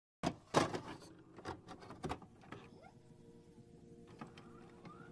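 Intro sound effects for an old-film countdown: several sharp clicks and crackles in the first two seconds, then a steady drone of a few held tones with short rising glides.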